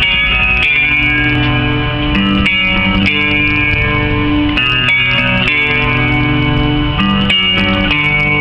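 Guitar-driven rock music playing loud through a 1997 Chevy truck's stereo system with two 10-inch subwoofers, heard inside the cab, with chords and bass notes changing every second or so.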